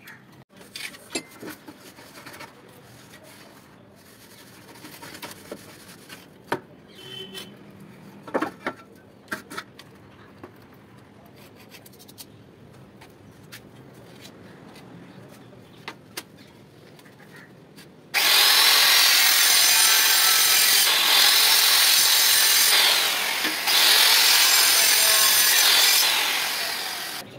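Light scattered clicks and knocks. About 18 seconds in, a handheld electric tile cutter starts and cuts through a ceramic tile for about nine seconds, with a brief dip partway through the cut.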